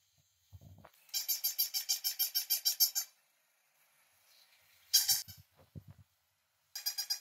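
Electronic toy puppy yapping in quick, high-pitched bursts, about seven yaps a second: a two-second run about a second in, then two short bursts near the end. Soft low thuds come from the dogs pawing and mouthing the toy.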